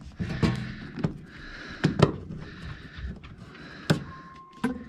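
Hand nut driver working a screw on a furnace's sheet-metal panel: scattered sharp metallic clicks and knocks, the loudest about two seconds in and again near four seconds.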